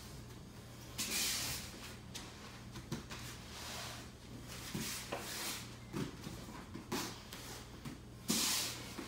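A person rolling over the shoulder on floor mats: body and clothing brushing and sliding across the mat, with soft thuds as hands, hips and knees land. Two louder hissing swishes stand out, about a second in and near the end.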